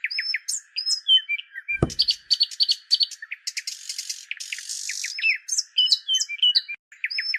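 Small birds chirping and whistling: a busy mix of short overlapping calls and trills, with a brief low downward swoop about two seconds in.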